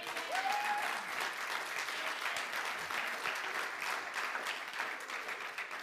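Congregation applauding steadily in response to the sermon.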